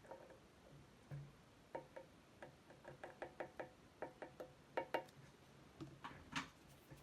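Irregular light clicks and taps of small hand tools working on a circuit board, about fifteen in a few seconds, during ROM desoldering and socketing work.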